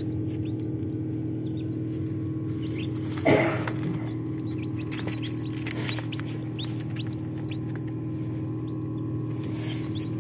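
Newly hatched Kadaknath chicks peeping continuously, many short high chirps that each fall in pitch, over a steady low hum. About three seconds in there is one brief louder, lower sound that falls in pitch.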